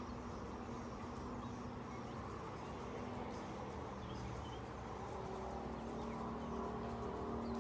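Steady low hum with a couple of held tones, the room tone of a large indoor riding arena. A few faint high chirps come now and then.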